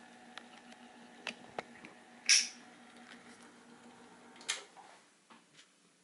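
Smith-Corona Coronet Electric 12 electric typewriter with its motor humming steadily, a few light clicks, and two loud mechanical clacks, the first about two seconds in and the second about four and a half seconds in. The hum stops about five seconds in.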